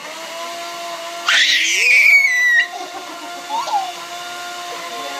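Electric kitchen blender motor running steadily, with a small child's loud, high-pitched squeal falling in pitch about a second in.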